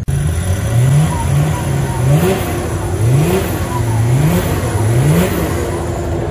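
An off-road 4x4's engine revving hard again and again, its pitch climbing and dropping back about six times.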